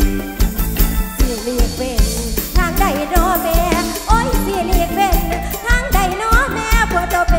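Live Isan mor lam band music with a steady drum-kit beat; a woman's singing voice, wavering in pitch, comes in strongly about two and a half seconds in.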